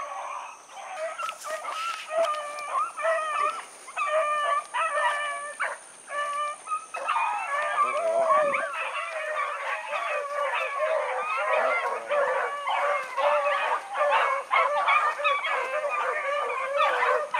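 A pack of rabbit hounds baying on a rabbit's trail. Separate cries come at first, then from about seven seconds in many voices overlap in a continuous chorus: the pack is in full cry on the running rabbit.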